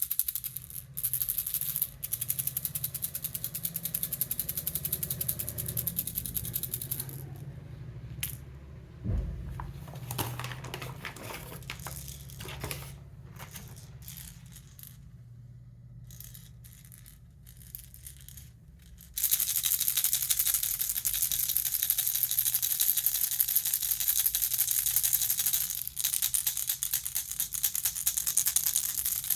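Plastic baby rattle shaken, giving a dense, rapid rattling of small beads. The rattling thins to scattered, quieter clicks through the middle, then comes back loud and dense about two-thirds of the way through.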